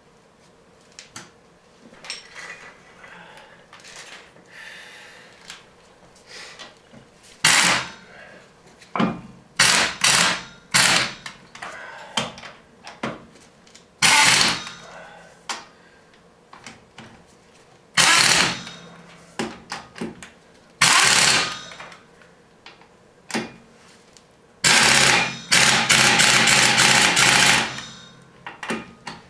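Pneumatic impact wrench running lug nuts on a vehicle wheel in a series of short, loud bursts. The longest burst, near the end, hammers rapidly as the nuts run down tight. Faint clicks and clatter of the nuts and tools come before the first burst.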